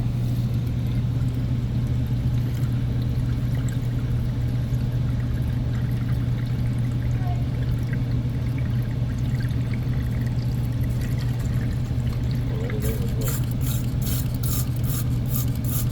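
Water poured into an air-conditioner's condensate drain to test that it drains, over the steady low hum of the running unit. A quick run of sharp clicks comes near the end.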